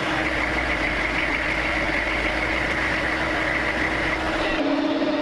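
Humvee's V8 diesel engine idling steadily with a low rumble and a constant hum. Near the end the hum changes to a different, lower tone.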